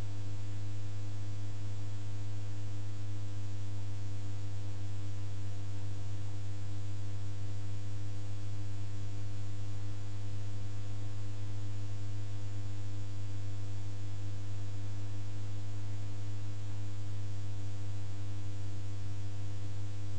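Steady electrical hum, a low tone with a thin buzz of higher overtones and faint hiss, unchanging throughout.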